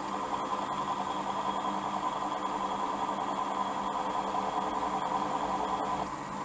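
Milling machine running with a twist drill cutting a 6.5 mm hole through steel clamped in the vise: a steady motor hum with a constant pitch under the noise of the cut. It gets a little quieter near the end.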